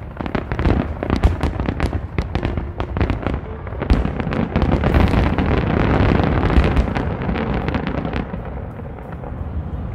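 Aerial firework shells bursting in rapid succession: many sharp bangs at first, merging about four seconds in into a dense, continuous rattle of overlapping bursts that eases off near the end.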